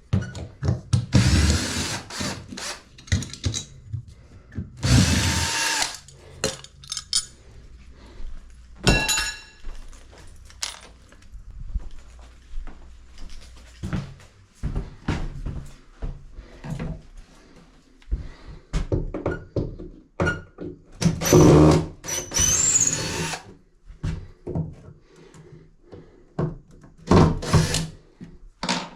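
Power drill running in about five short bursts, one of them with a rising whine, with knocks and clicks of handling between the bursts.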